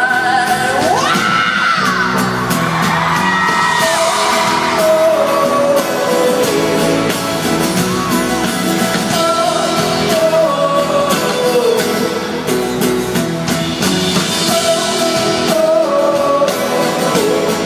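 Live pop-rock band playing an instrumental passage between choruses of the song, with a high sliding melodic line a second or so in.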